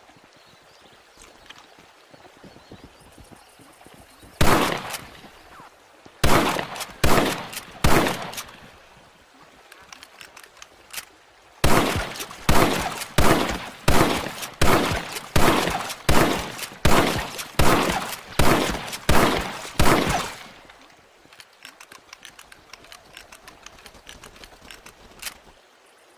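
Winchester rifle shots: a single shot, then three in quick succession, then a rapid string of about a dozen shots roughly 0.7 s apart, each with a short ringing tail.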